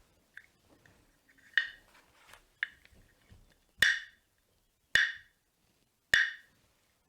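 Wooden percussion, a wood block drum or claves, struck in a slow, steady beat of sharp, ringing clacks. A few quieter taps come first; from about four seconds in, the strokes are loud and about a second apart, setting the beat before the singing begins.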